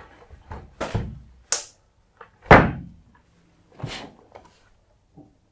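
Rubber bands being stretched and let go over a Plexiglas sheet on a wooden board, giving a series of snaps and knocks; the loudest is a thump about two and a half seconds in.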